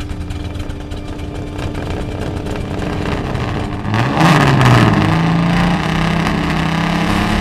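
Car engine rumbling low at idle, then revved hard about four seconds in: the pitch climbs and falls, then holds steady at a higher rev.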